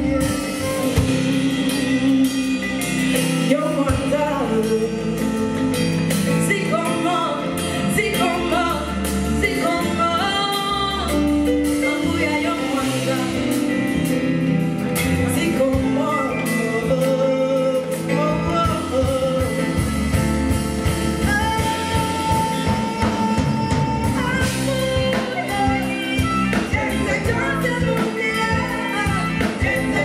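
Live band music: a woman singing lead over drum kit, electric guitar, bass and keyboard.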